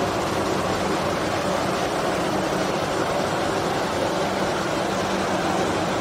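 Steady running noise of a stainless steel wire annealing and take-up line: a constant even hiss with a low hum under it.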